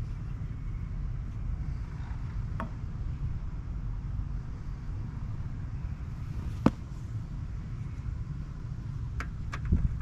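Steady low background rumble with a few sharp plastic clicks and taps from handling the turn-indicator lens and housing of a Vespa PX. The loudest click comes about two-thirds of the way through, and a quick cluster of lighter ones comes near the end.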